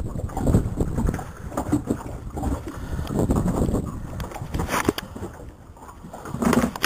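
Low, uneven rumble of wind on the microphone aboard a small open boat, with a couple of sharp knocks in the second half.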